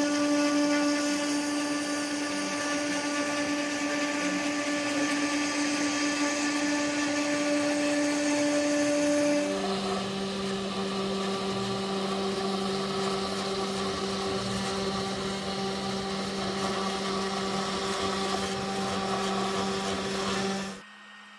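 Two Trees TTC450 CNC router spindle running steadily while its bit carves into plywood: a steady motor whine over a hissy cutting noise. About halfway through, the whine drops to a lower steady pitch. The sound stops abruptly near the end.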